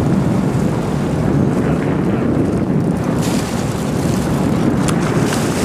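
Steady rumble of a charter boat's engine with wind buffeting the microphone and water rushing along the hull. A brighter water hiss picks up about three seconds in.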